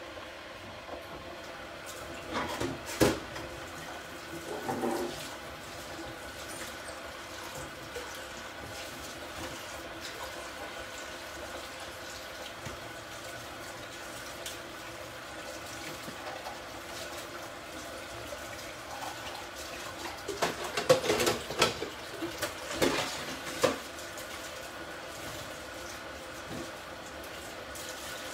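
A pot of water and a pan of tomato sauce heating on the hob: a steady watery hiss of liquid coming up to the boil, with short clusters of pops and knocks a couple of seconds in and again about twenty seconds in.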